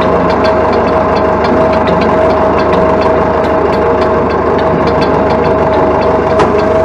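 Massey Ferguson 165's Perkins AD4.212 3.5-litre four-cylinder diesel engine idling steadily, with a light ticking running through the sound.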